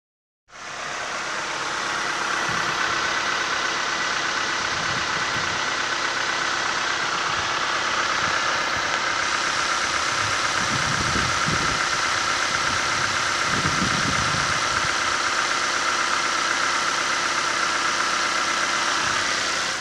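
Suzuki Grand Vitara 2.4-litre four-cylinder petrol engine idling steadily with the bonnet open, with a steady high whine over the idle.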